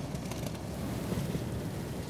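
Steady low rumble of a car moving slowly in traffic, heard from inside the cabin, with a little wind noise.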